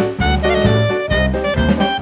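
Background music: upbeat jazz/swing instrumental with a steady beat, drums and bass under brass-like melody lines.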